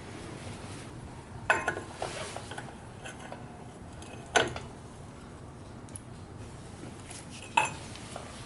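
Three separate metallic clanks a few seconds apart, like tools or steel parts being set down or knocked while working on a Jeep's front hub assembly; the last one rings briefly.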